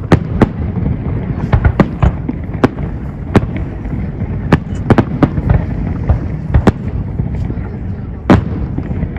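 Fireworks display going off: a loud, irregular string of sharp bangs, well over a dozen, over a continuous low rumble.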